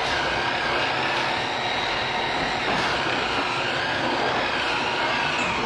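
Many pigs squealing together in a continuous, dense chorus, with wavering high cries over it. These are distress squeals.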